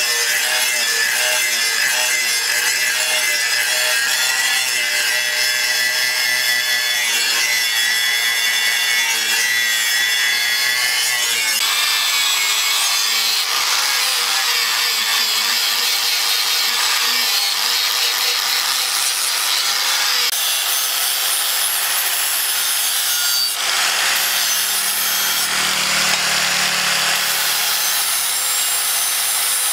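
Handheld angle grinders with abrasive discs grinding the flat of a leaf-spring steel cleaver blade. A steady motor whine runs under the hiss of the disc on the steel, and its tone shifts a few times.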